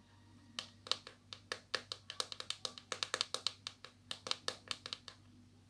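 Fingernails tapping and clicking on the sealed plastic packaging of a mystery squishy: quick, irregular sharp taps, several a second, stopping just before the end.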